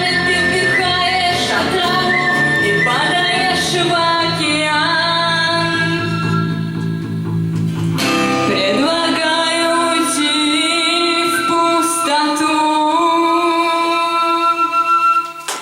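Live song with guitar accompaniment: a wordless melody of long held notes with vibrato, pausing once midway and ending just before the end.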